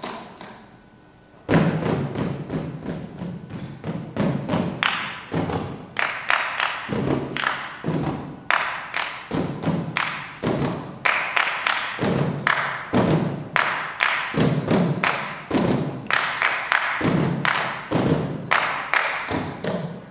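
Rhythmic percussion: sharp knocks struck in a quick, uneven pattern of several a second, each with a short low ring. It starts after a short pause about a second and a half in and stops abruptly at the end.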